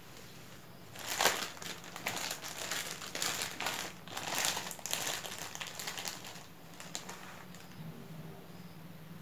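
Thin clear plastic bag crinkling as hands open it and rummage inside for the roti sai mai crepes. The crackling starts about a second in and dies away after about six seconds.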